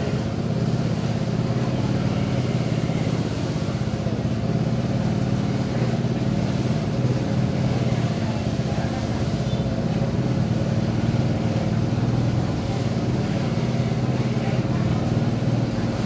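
A motor running steadily with an unbroken low hum.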